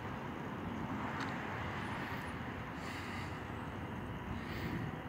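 Steady outdoor background rumble with no distinct event. A few soft puffs of breath near the microphone recur every second or two.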